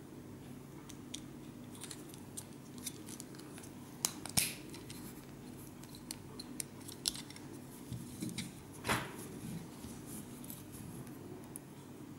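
LEGO Technic plastic parts clicking and scraping as they are handled and fitted into a wheel hub, in scattered small clicks, with a louder click about four seconds in and a louder scrape about nine seconds in.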